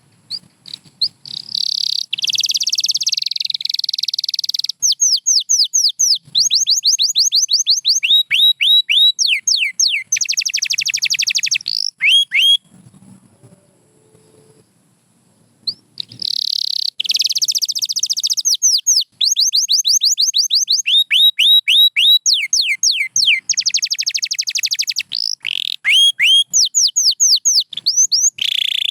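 White domestic canary singing: long, loud, high-pitched phrases of rapid trills, made of runs of quick repeated down-sweeping notes and dense buzzy rolls. It pauses for about three seconds midway, then sings a second long phrase.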